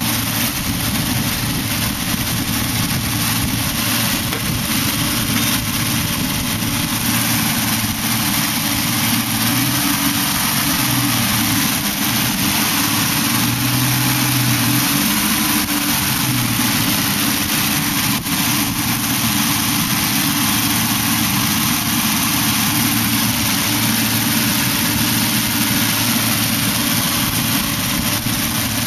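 An old car's carburetted engine with tube exhaust headers, running steadily, heard through a poor camera microphone.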